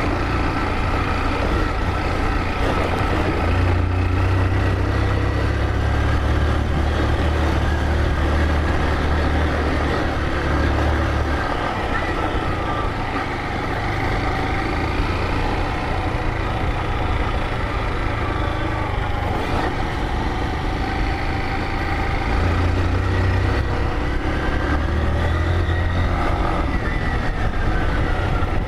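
Motorcycle engine running steadily while riding, with a deep low rumble that swells for several seconds twice, over a continuous rush of noise.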